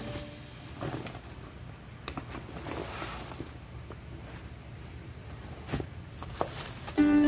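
Shopping bags being moved and set down on a table: scattered rustling of plastic and fabric with soft knocks, the two sharpest near the end.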